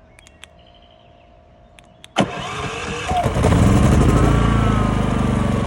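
A few faint clicks, then about two seconds in the camper's generator engine cranks suddenly, catches and comes up to a steady run within about a second and a half.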